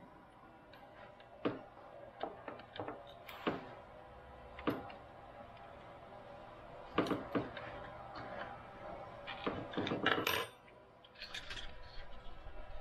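Scattered light metallic clinks and taps of a hand tool on the nuts of the mill's X-axis ball nut holder as they are tightened, the louder knocks coming near the middle and about two-thirds of the way in.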